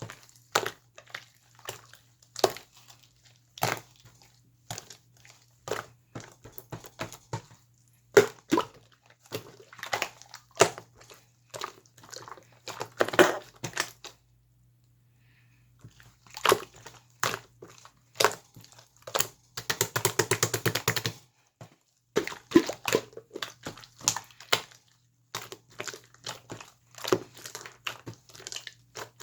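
Slime being squished and pressed by hand, giving irregular sticky clicks and pops. About halfway there is a short pause, and about two-thirds of the way in comes a quick dense run of crackling clicks.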